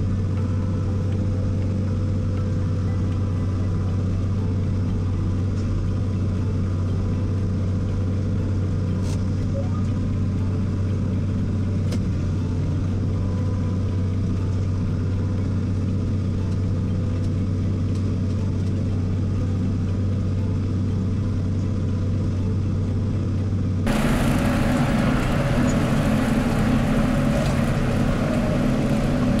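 John Deere 4040 tractor's diesel engine running steadily, heard from inside the cab as a deep, even drone. About 24 s in, the sound cuts abruptly to a louder, brighter tractor engine run.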